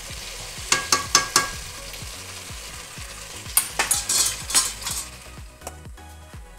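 Pumpkin and potato curry sizzling in a wok while a metal spoon stirs it, scraping and knocking against the pan in short clusters about a second in and again around four seconds in. It goes quieter near the end.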